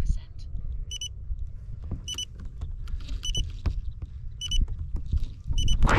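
Short high-pitched electronic beeps repeating about every second, from the Volantex Ranger 1600 RC plane's flight-controller beeper signalling that auto-launch mode is armed and waiting for the throw. Wind rumbles on the microphone underneath.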